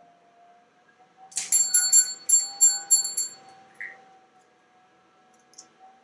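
A quick run of about seven bright, bell-like rings lasting about two seconds, each struck sharply and ringing briefly. A faint steady hum runs underneath.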